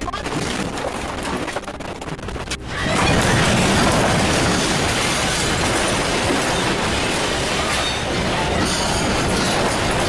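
A building shaking in an earthquake: a dense rattling and rumbling of furniture and fittings. It jumps suddenly louder about three seconds in and stays loud.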